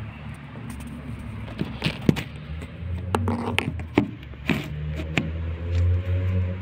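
Steady low rumble of road traffic, with a handful of short sharp clicks and crackles close to the microphone scattered through the middle.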